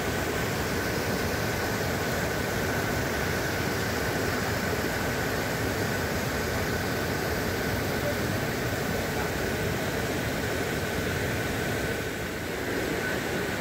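Mountain stream rushing and splashing over granite boulders: a steady, even rush of water.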